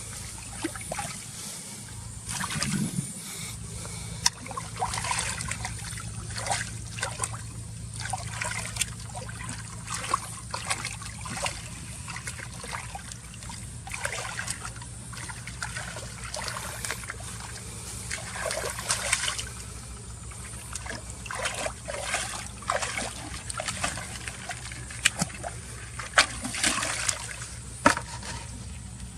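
Shallow water trickling and splashing in many small, irregular splashes, as hands work through it.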